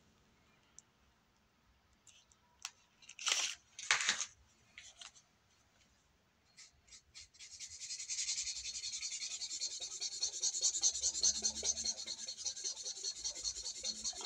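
Drawing on sketchbook paper: quick, even scratching strokes back and forth, starting about seven seconds in and keeping up to the end. Before that, a couple of short rustles from handling the sketchbook.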